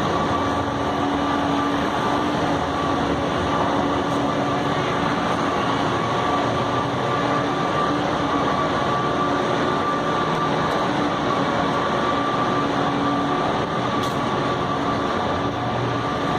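Heavy machinery running steadily and loudly: an even mechanical rumble with a constant low drone and a higher steady whine over it.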